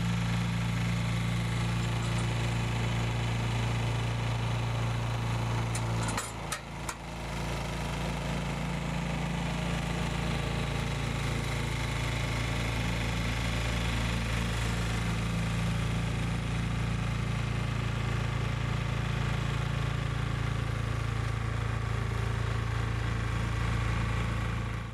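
The 6.5 PS OHV petrol engine of a Jansen HS-22A62 log splitter running steadily. Its level dips briefly about six seconds in.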